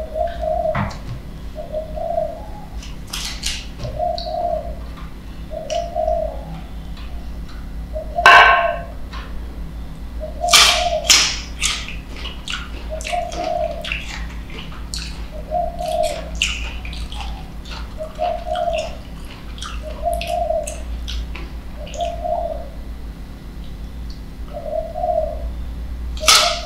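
A dove cooing: a short low call repeating about every one and a half seconds. Crisp clicks and crunches of green mango being sliced and bitten come at intervals, the loudest about eight and ten seconds in and at a bite near the end.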